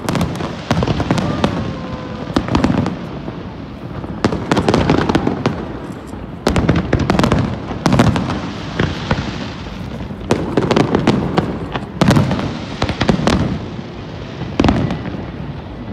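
Aerial fireworks display: shells bursting in repeated volleys of sharp bangs and crackling, over low booms.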